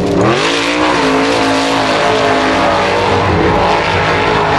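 Off-road racing buggy's engine revving hard: the pitch dips just after the start, then climbs and holds at high revs. A steady hiss of spray and thrown dirt runs under it as the buggy drives through mud and water.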